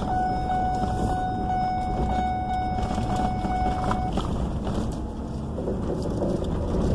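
Vehicle moving slowly on a gravel road, heard from inside the cab: a steady low rumble of engine and tyres, with a steady high whine that cuts off suddenly about four seconds in.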